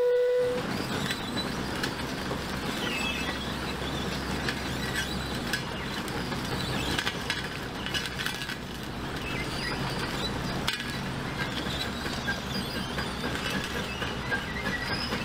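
Lombard steam log hauler under way: a steam whistle blast cuts off just after the start, then the steam crawler runs with a steady hiss and low rumble, peppered with many small metallic clinks.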